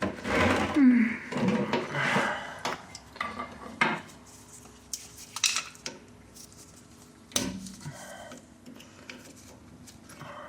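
Metal tools and parts of a Suzuki Samurai front steering knuckle clinking and knocking against each other during disassembly. There is a busy clatter at first, then a handful of separate sharp metallic knocks with brief ringing.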